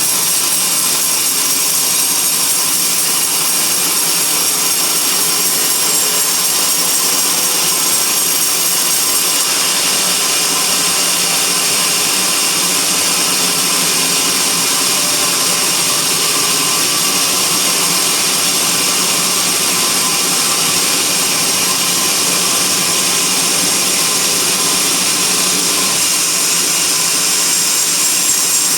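Sawmill band saw running steadily as it cuts through a teak log.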